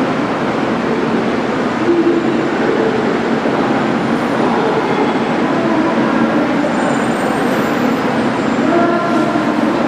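JR Kyushu 883 series electric limited express trains pulling slowly into a station: a steady rumble of wheels and running gear, with a few brief faint tones in the second half.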